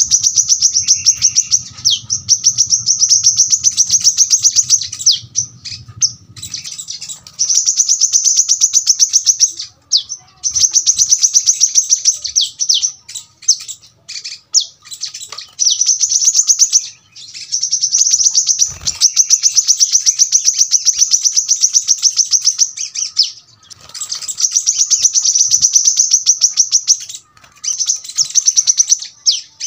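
Brown-throated sunbird singing its rapid-fire song: long, high, dense trills of fast repeated notes in phrases of a few seconds, separated by short gaps with scattered brief chips.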